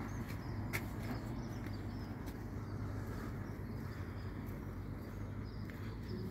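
Outdoor background noise: a steady low rumble with faint, high bird chirps and a few light clicks.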